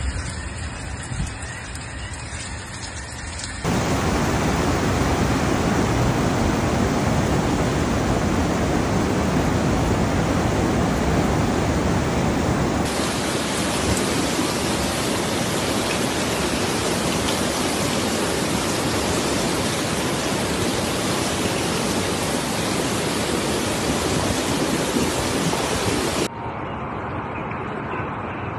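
Rushing floodwater: a loud, even rush of water noise that starts suddenly a few seconds in and cuts off abruptly near the end.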